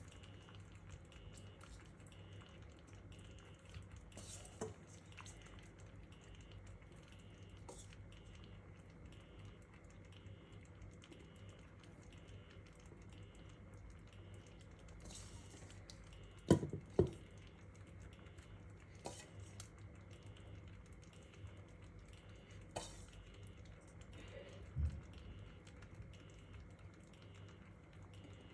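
Faint, scattered taps and clinks of vegetable pieces being set into a tajine dish, with two louder knocks about halfway through, over a low steady hum.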